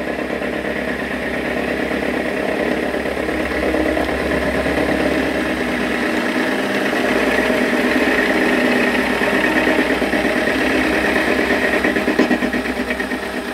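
Metal lathe running with an end mill in its chuck, milling a small metal workpiece clamped in the tool post with light cuts: a steady motor and spindle hum overlaid with the cutting noise, which grows a little louder about halfway through.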